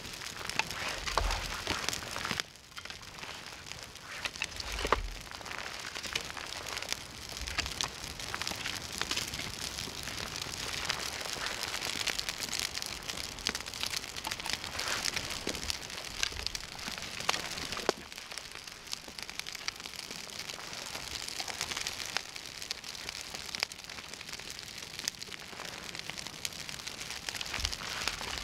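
Freshly lit campfire of birch bark, feather-stick shavings and twigs crackling and hissing as it catches, a dense stream of fine pops, with a few soft low thumps.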